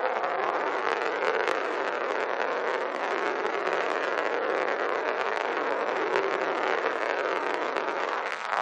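Glass marble rolling continuously on a hard surface: a steady rumble with fine rapid clicks, with a brief dip about eight seconds in.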